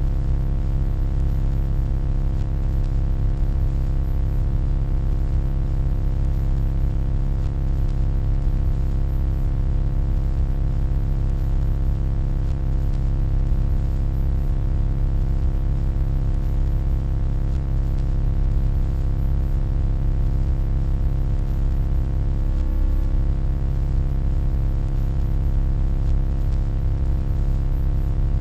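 Steady, deep electronic hum with many overtones stacked above it, like an electrical transformer or appliance humming. It wavers briefly about three-quarters of the way through.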